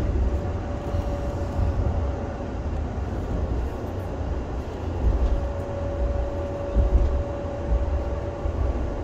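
Interior sound of a Škoda ForCity Smart Artic tram running along the street: a continuous low rumble of wheels on rails and running gear. A thin steady whine sounds for the first couple of seconds and returns about halfway through.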